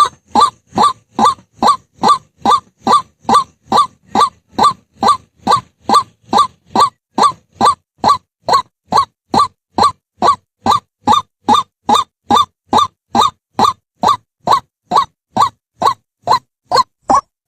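White-breasted waterhen calling, one harsh note repeated over and over at a very even pace of a little more than two a second.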